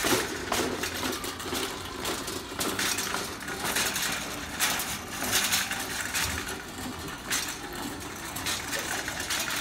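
Wire shopping cart rolling over a hard store floor, rattling, with irregular clatters every second or two over a steady store background.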